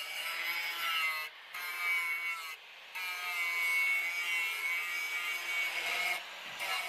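Angle grinder with an abrasive disc grinding the bevel of a steel knife blade made from rebar: a high whine over the rasp of abrasive on steel. It drops away briefly three times.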